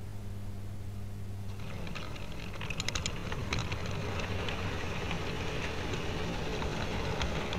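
Model train pulling away from a stop: a steady electrical hum, then from about a second and a half in the rumble of wheels rolling on the track with irregular clicks over rail joints.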